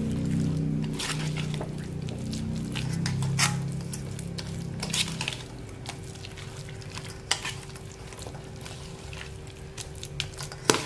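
A metal spoon stirring and scraping a thick vegetable batter of shredded cabbage, bean sprouts and carrot in a stainless steel bowl, with many short clicks of the spoon against the bowl.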